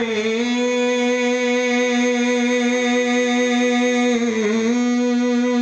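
A man's amplified voice holding one long sung note of a devotional chant, steady in pitch with a slight regular waver. About four and a half seconds in, the note dips briefly and comes back up.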